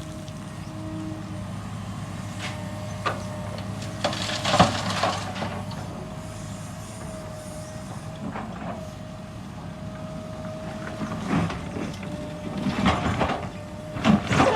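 Excavator running with a steady engine drone and a constant high whine, broken several times by scraping and clanking, loudest about four and a half seconds in and again near the end.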